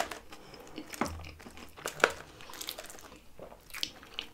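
Close-miked chewing of fries and stewed beef, with a few sharp wet mouth clicks, and a fork picking through the fries in the tray near the end.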